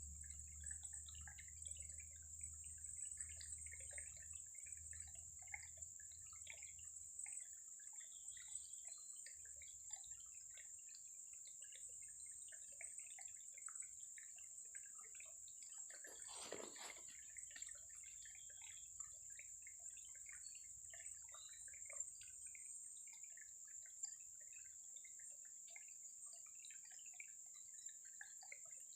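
Faint water ambience near silence: scattered small drips and ticks over a steady high-pitched hiss, with one brief louder splash-like noise about 16 seconds in.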